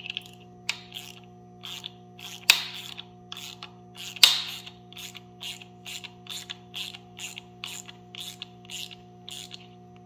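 Small hand ratchet clicking in short back-and-forth strokes as it drives a cam gear bolt, about three clicks a second, with two louder sharp metal clacks about two and a half and four seconds in.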